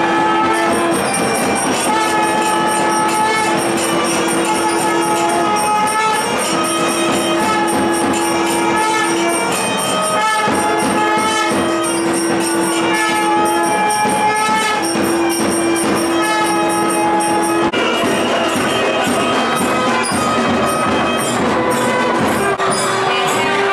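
Temple festival music during the lamp offering: a wind instrument sounds one long steady note again and again, each about three to four seconds with short breaks, over continuous jingling bells and percussion. Near the end the held note moves up a little in pitch.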